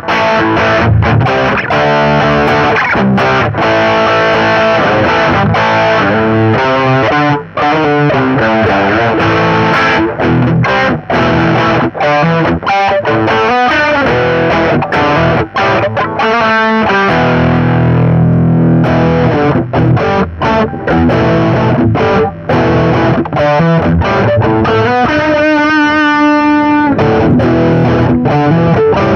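Electric guitar played through a Marshall GV-2 Guvnor Plus overdrive pedal: a run of distorted chords and single-note riffs. Midway one low chord is left ringing for about two seconds, and near the end comes a quick burst of fast repeated notes.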